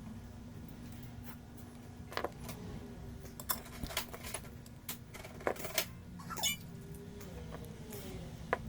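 Scattered small metallic clicks and taps from hand tools handled at an electronics repair bench, about eight in all, over a steady low hum.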